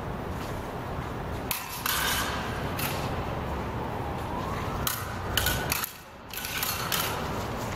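Steel practice rapiers and daggers clashing in sparring: sharp metallic clacks in two flurries, a couple of seconds in and again past the middle, some with a brief ringing after them.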